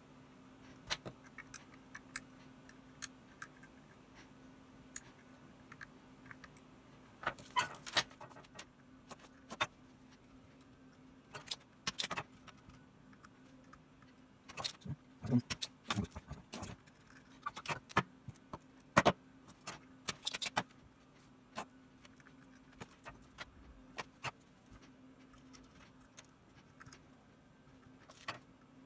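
Irregular small clicks, taps and light metallic rattles of hands handling wires and small parts inside the open plastic shell of a Crybaby wah pedal, some in quick clusters, over a faint steady hum.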